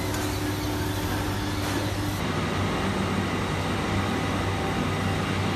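Steady hum and hiss of PCB production machinery running: a board deburring machine, then an automated plating line. A steady higher tone in the hum drops out about two seconds in.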